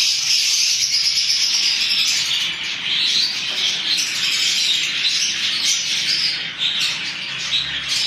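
A flock of caged budgerigars chattering continuously, a dense mass of high chirps with no pause.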